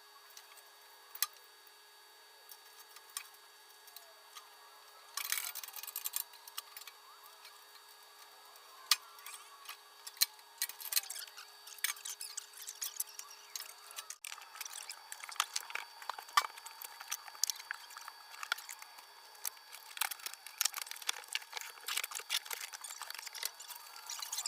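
Scattered sharp clicks, taps and knocks of parts and tools being handled while a drum sander is being assembled, coming thicker from about five seconds in. A faint steady hum stops abruptly about fourteen seconds in.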